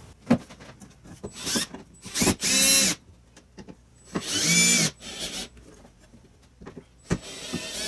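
A handheld power drill run in two short bursts, its motor whining up in pitch each time, with a few sharp clicks between them.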